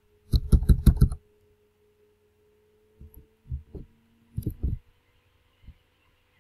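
Low thuds and clicks: a quick run of about seven in the first second, then a few softer thuds a few seconds later, over a faint steady hum.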